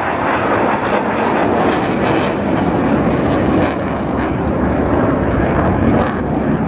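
Loud, steady jet noise from the RAF Eurofighter Typhoon's twin turbofan engines as the fighter flies past.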